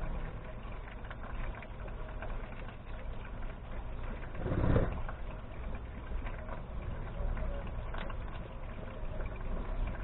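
A steady low background hum, with one louder rumbling swell of about half a second midway through. Budgerigars give a brief high chirp near the end.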